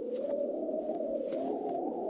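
Wind blowing with a low, hollow whistle that slowly rises in pitch.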